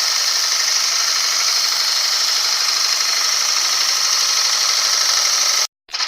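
CNC wood lathe cutting wood, a steady high-pitched hiss of the cutter. It cuts out abruptly for a moment near the end.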